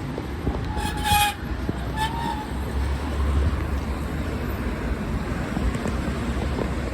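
Steady road traffic and wind rumble heard while cycling across a bridge, broken by two short pitched toots, the first about a second in and a briefer one just after two seconds.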